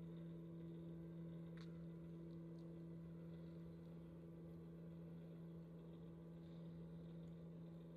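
Faint, steady low hum of a motorised display turntable turning slowly, two constant tones with no change in pitch; a faint click about a second and a half in.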